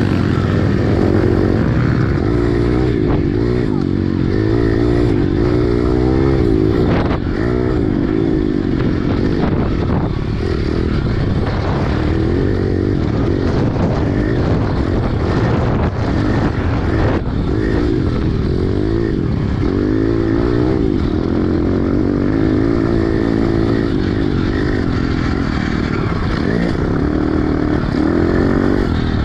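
Single-cylinder pit bike engine heard from on the bike while it is raced, its revs rising and falling continuously as the throttle is opened and rolled off.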